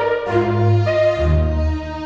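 Orchestral background music with strings and brass: held notes over a bass line that shifts to a new chord about a second in.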